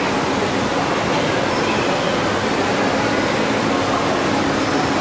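Steady rushing water noise from aquarium tanks and their filtration, with faint voices of other visitors underneath.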